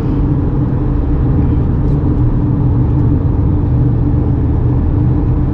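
Steady in-cabin noise of a Tata Punch cruising at highway speed: its three-cylinder petrol engine running at a steady pitch under road and wind noise.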